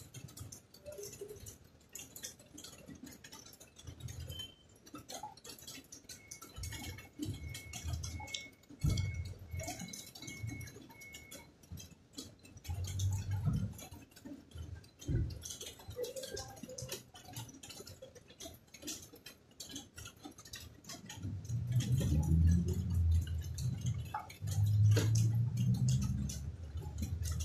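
Close-up eating sounds: dalandan orange segments being pulled apart and chewed, with small clicks and soft thuds of fingers and fruit on a plate. A louder stretch of low mouth sounds comes near the end, and a string of about eight short high beeps sounds about a quarter of the way in.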